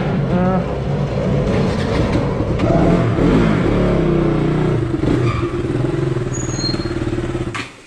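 Sport motorcycle engines running at low speed as a second bike rides up close and stops alongside, with a brief rise and fall in engine pitch about three seconds in. The sound cuts off suddenly near the end.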